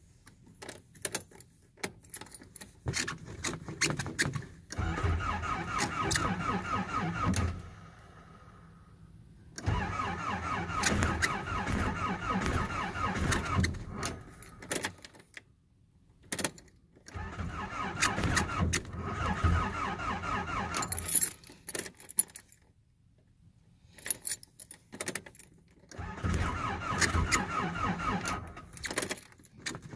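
Nissan 720 pickup's engine being cranked by the starter in four tries of a few seconds each, without catching: a failed cold start. Keys jingle in the ignition between tries.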